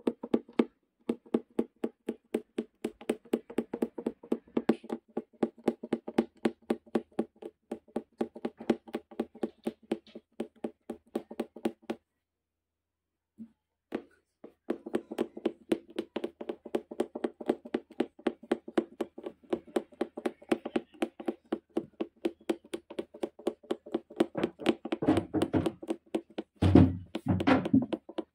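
Punch needle stabbing through fabric stretched taut in a wooden embroidery hoop: quick, even taps about four a second, each with a short tone from the drum-tight fabric. The tapping stops for about two seconds midway, and a few heavier thumps come near the end.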